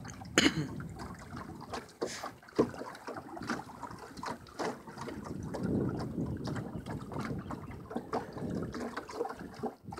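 Fishing net being hauled by hand out of the water over the side of a small boat: water splashing and dripping off the mesh, with irregular knocks against the boat.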